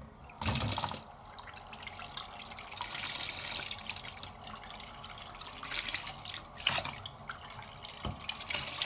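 Water poured into a cooking pot over pieces of raw catfish and seasoning, splashing and trickling in uneven surges.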